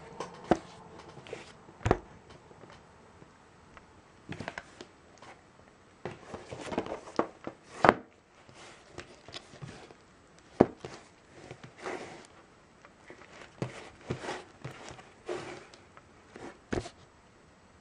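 Hands handling a shrink-wrapped DVD box set: irregular crinkling and rustling of the plastic wrap, with sharp clicks and knocks, the loudest about 2, 8, 10 and 17 seconds in.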